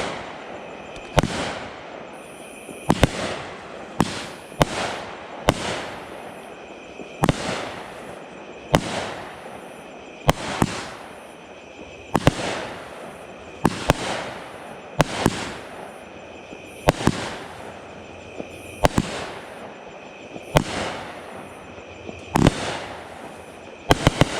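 Raccoon Fireworks Viper Strike, a 200-gram 19-shot cake, firing in steady sequence: a sharp bang about every one and a half seconds, each trailing off over about a second, with a quick double shot near the end.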